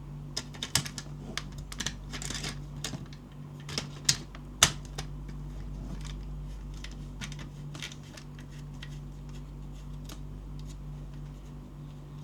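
Handling of a toy gel blaster: a run of sharp clicks and rattles, busiest in the first five seconds with the loudest pair about four and a half seconds in, then sparser, over a steady low hum.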